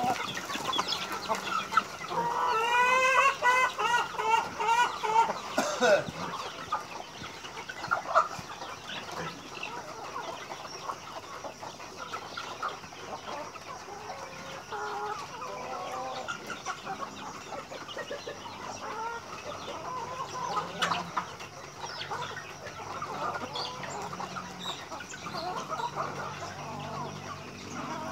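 A flock of chickens clucking. Between about two and six seconds in there is a loud, rapid run of repeated calls, followed by scattered quieter clucks.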